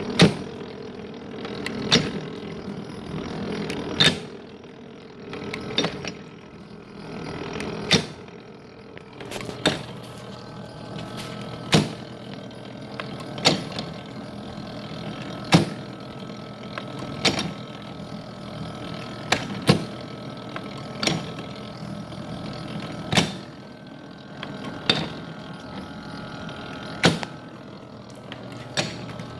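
Small vintage metal planer running, with a sharp clack about every two seconds as its table strokes back and forth, over a steady hum.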